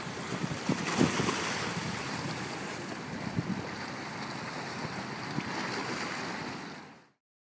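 Wind rushing over the microphone above choppy water lapping against a rocky shoreline, with a few low gusty bumps. The sound cuts off suddenly near the end.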